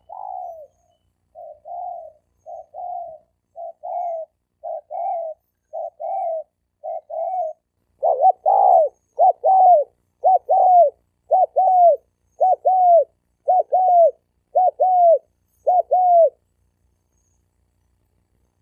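Spotted dove (cu gáy) male cooing: a steady series of short, falling coo notes. They are softer at first and much louder from about halfway, then stop shortly before the end.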